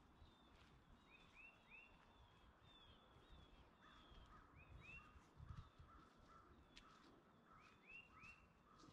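Faint calls of several birds: short arched notes in groups of three, rapid repeated higher notes, and lower calls repeating from about halfway through. Beneath them is a low rumble with a thump a little past halfway.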